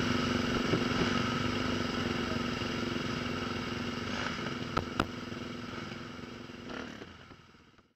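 Dirt bike engine idling steadily, fading out near the end. Two sharp clicks about five seconds in.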